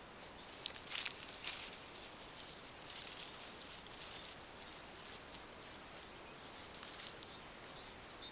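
Small pinscher dog nosing and sniffing through dry grass and fallen leaves for scattered kibble, with soft rustling and a few sharper rustles about a second in.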